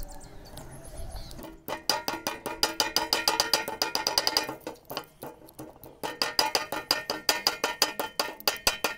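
A small hammer tapping quickly on a thin aluminum strip cut from an LED bulb, flattening it into a plate on a wooden block. The taps come about five a second with a light metallic ring, in two runs broken by a pause of about a second and a half in the middle.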